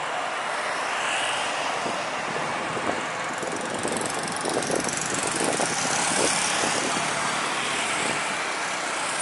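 Jet engines of an Airbus A320 airliner touching down and rolling out along the runway: a steady rushing roar with some crackle, loudest a few seconds in, just after the main wheels meet the runway.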